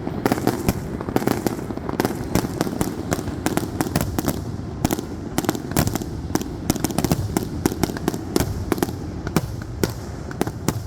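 Fireworks display: a dense, irregular string of sharp cracks and bangs, several a second, over a continuous low rumble.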